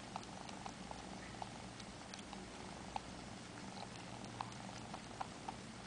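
Four-month-old Siamese kitten purring steadily while comfort-sucking on a finger as it settles for sleep, with soft irregular clicks from its mouth every half second or so.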